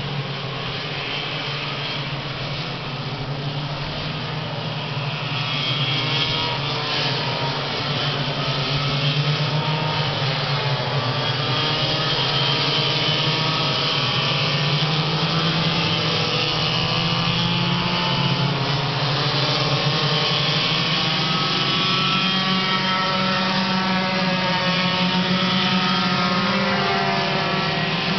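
A pack of racing go-kart engines running together, several overlapping engine notes rising and falling in pitch as the karts accelerate and lift around the track. The sound grows louder about six seconds in.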